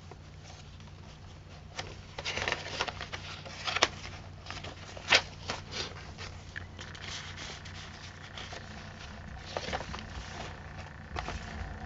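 Paper rustling with light clicks and taps as the pages and tucked-in tags of a handmade paper journal are handled and turned, over a steady low hum.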